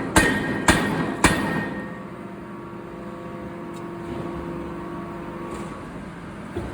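Power forging hammer striking three times, about half a second apart, then stopping; a steady machinery hum with a faint tone carries on after the blows.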